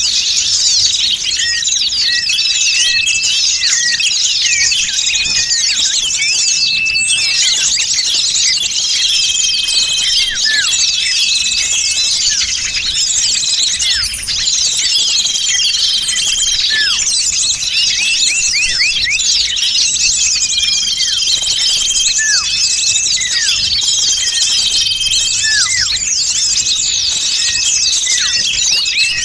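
Dense, noisy chorus of many small songbirds chirping, twittering and trilling over one another, with short repeated whistles and falling notes cutting through. It is a bird-lure recording meant to draw small birds in for trapping.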